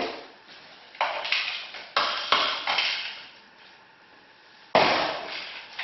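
Sharp knocks and clatter of an electrical box being handled in a drywall cutout: a burst of knocks between about one and three seconds in, and a louder knock near the end.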